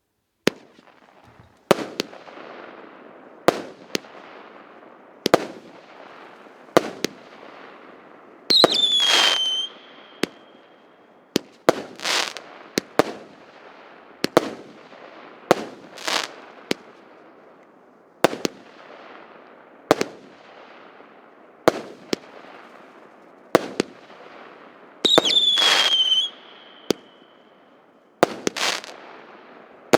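PC7630 'Oligarch's Dessert' firework cake (battery) firing shot after shot: a sharp launch bang every one and a half to two seconds, each trailing off into crackling. Twice, about a third of the way in and again near the end, a falling whistle rides over a longer rushing burst.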